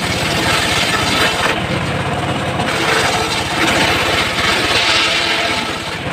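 Homemade circular sawmill cutting teak: the machine's motor runs steadily while the blade's cutting noise swells and fades about four times.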